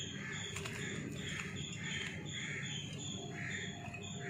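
Steady background chirping: short, high chirps repeating in an even rhythm several times a second.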